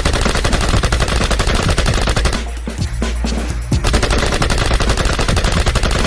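Machine-gun sound effect: rapid automatic fire in three long bursts with two short breaks, over a steady low music bed.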